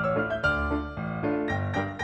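Background music: a piano-led instrumental with notes in a steady rhythm over a low bass.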